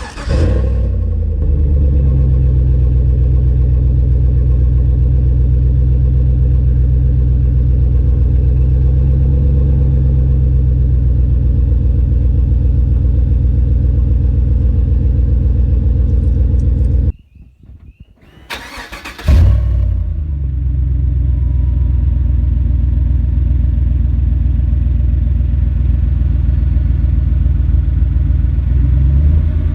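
A 2014 Silverado's 5.3-litre V8 running through a Flowmaster Super 44 muffler, with the resonator deleted and the exhaust dumped straight out of the muffler. The engine starts and settles into a steady idle. After a brief break about 17 seconds in, it starts again, flares up, and settles back to a steady idle.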